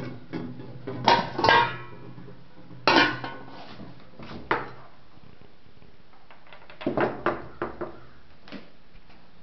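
Copper pots, pans and utensils clanking and clinking as they are picked up and moved about: several clusters of metallic knocks, some with a short ring, the last cluster about seven seconds in.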